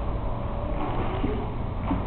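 Pool water sloshing and splashing as people move about in it, over a steady low rumble on the microphone.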